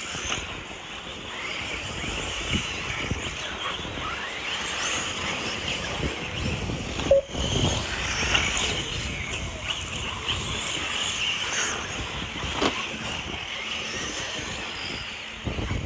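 Several radio-control off-road buggies racing on a dirt track, their motors whining and rising and falling in pitch.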